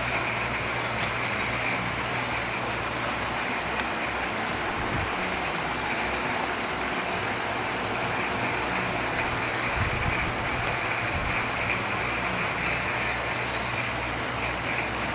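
Steady background noise with a low, even hum, and a few faint clicks and scrapes as the steel legs of a preformed cable grip are wrapped around a Phillystran guy line.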